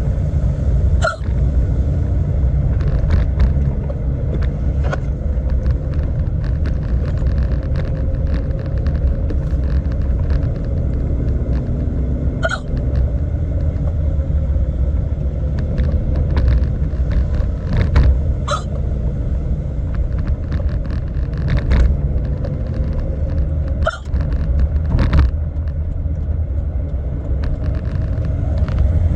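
A woman hiccuping: short, sharp hiccups at uneven gaps of a few seconds, over the steady low rumble of a moving car heard from inside the cabin.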